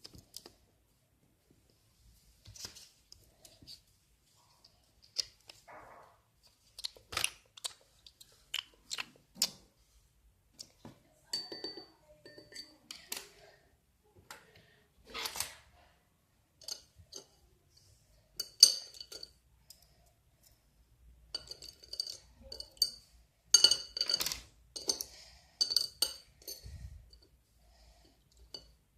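A series of sharp taps and clicks from small hard objects, some ringing briefly like clinks on glass or a dish, coming more thickly for a few seconds near the end.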